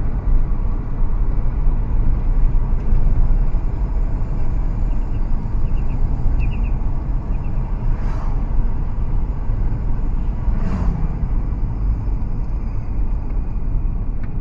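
Steady low engine and road rumble inside a Jaguar's cabin while driving, with the air-conditioning compressor making noise as the AC has stopped cooling. A few faint ticks come about five to seven seconds in.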